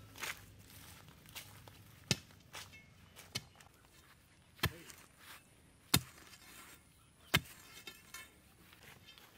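Chopping with a knife or cleaver: sharp, evenly spaced strokes about every 1.3 seconds, five loud ones with softer taps in between.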